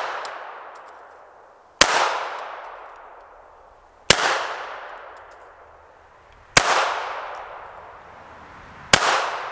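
Remington RM380 .380 ACP pocket pistol firing four single shots about two and a half seconds apart, each trailing off in a long echo. It is fired with a deliberately limp wrist to test reliable cycling, and it cycles without a malfunction.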